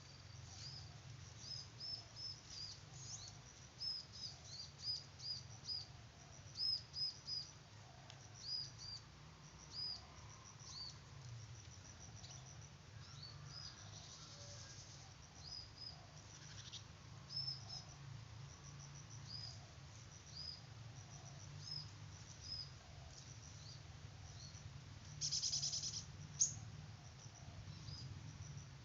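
Small birds giving short high chirps, singly and in quick runs of two or three, with a brief buzzy rattle about 25 seconds in and a sharp click just after it. A low steady hum runs underneath.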